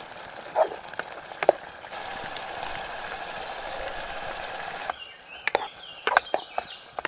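Canned beans poured into a hot pan of browned sausages, setting off a steady sizzling hiss for about three seconds. A wooden spoon then knocks and scrapes against the pan as the beans are stirred in.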